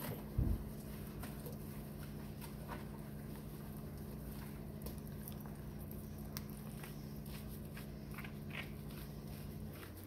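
Hands working shampoo lather into a wet small dog's coat in a sink: faint soft squishing and patting. A steady low electrical hum runs underneath and stops just before the end. There is a single dull thump about half a second in.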